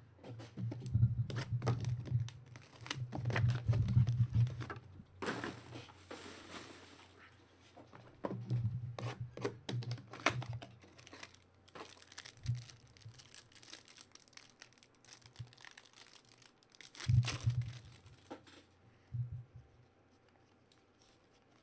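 A Panini Absolute Football trading-card pack being torn open and its wrapper crinkled, among scattered rustles and light knocks of cards and box being handled. A longer tearing noise comes about five seconds in, and another cluster of handling noises near seventeen seconds.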